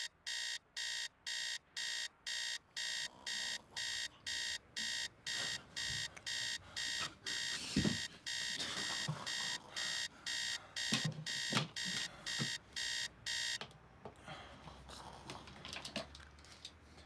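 An electronic alarm beeping in rapid, even pulses, about three a second, with soft knocks and rustles of movement in bed; the beeping cuts off suddenly about fourteen seconds in.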